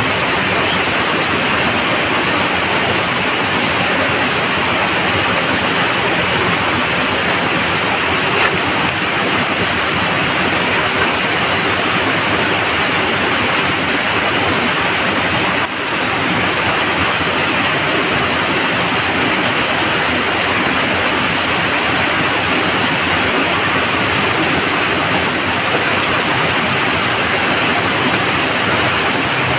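Steady, loud rushing noise with a thin, even high hiss on top, unbroken except for a brief dip about halfway through.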